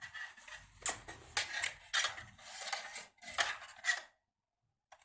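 Handling of a metal door closer and its packaging: irregular clinks, taps and rustling. It cuts to dead silence about four seconds in.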